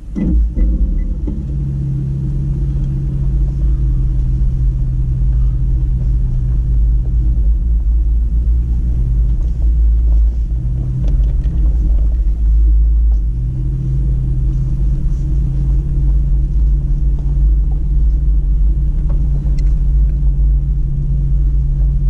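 Toyota Tacoma pickup truck driving slowly over a rough dirt and gravel trail: a heavy low rumble with a steady engine drone that fades a couple of times in the middle.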